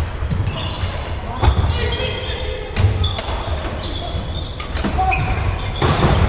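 Badminton doubles rally: sharp racket-on-shuttlecock hits about every second or so, with shoes squeaking on the court mats and thudding footsteps between shots.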